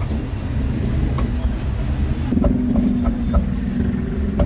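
Steady low rumble of street traffic. From about two seconds in, a meat cleaver chops quickly on a wooden chopping block, about five knocks a second.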